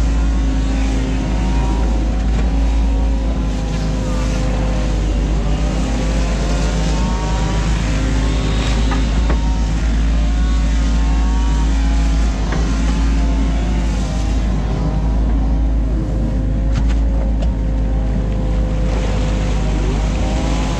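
New Holland Kobelco E50.2 mini excavator's diesel engine running steadily under working load, with a whine that rises and falls as the boom and bucket move, and a few knocks from the bucket.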